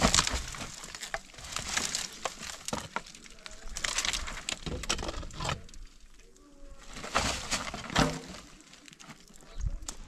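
Dry brushwood and branches crackling and snapping in repeated bursts as they are pulled and pried from a pile, with knocks between.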